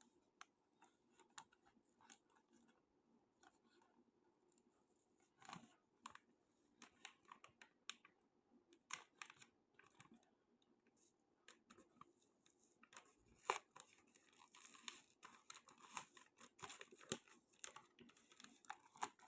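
Faint sounds of a package being opened by hand: scattered small clicks and brief tearing scratches, turning into denser rustling of packaging over the last few seconds.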